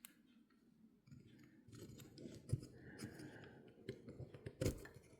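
Faint clicks and scraping of small metal parts of an Abumatic 150 spincast reel being worked together by hand, with one sharper click near the end.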